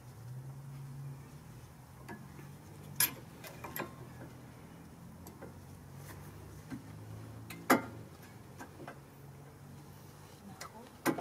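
Sharp metallic clicks and clinks, a few seconds apart, as the front brake caliper and tools are handled at the wheel hub, over a low steady hum.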